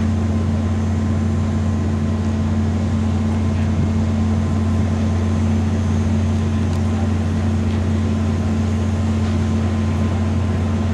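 Steady, loud low machine drone, constant in pitch, with a steady higher hum above it.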